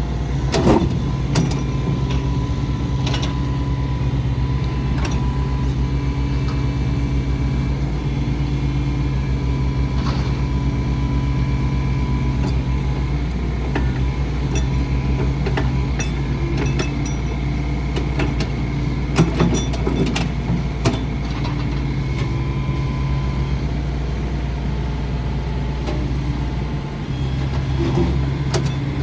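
Yanmar SV100 excavator's diesel engine running steadily, with scattered clicks and metal clanks, a cluster of them about two-thirds of the way through. The engine note shifts briefly near the end.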